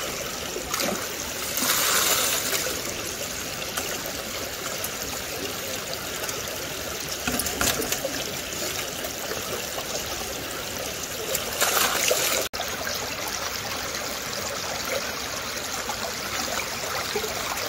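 Creek water trickling and splashing steadily, with louder rushes of splashing about two seconds in and again about twelve seconds in.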